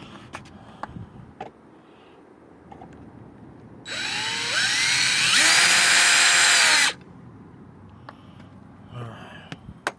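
Power drill running for about three seconds, its motor whine rising in speed in two steps, then holding before it cuts off suddenly. Faint clicks of handling are heard around it.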